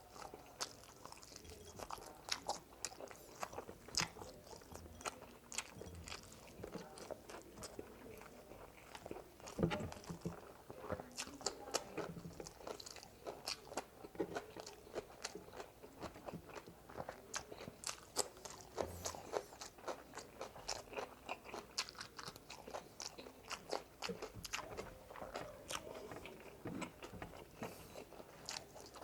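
A person chewing and crunching spicy fried frog legs, with irregular crackles and wet mouth clicks throughout and a few louder crunching bites.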